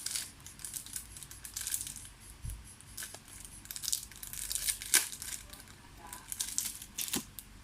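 Packaging crinkling and rustling as it is handled, with scattered light clicks and taps.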